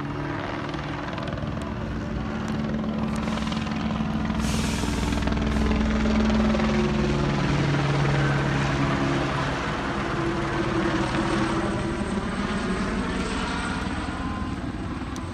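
Sheriff's helicopter circling overhead, its rotor and engine running steadily. The sound grows louder toward the middle and eases off near the end as it moves past.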